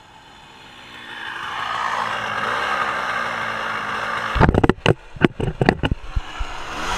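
Dirt bike engine coming closer and growing louder, its pitch rising and dipping with the throttle until it is right beside the microphone. From about four seconds in, a rapid run of loud knocks and bumps right on the microphone as the camera is jostled, with the engine still running underneath.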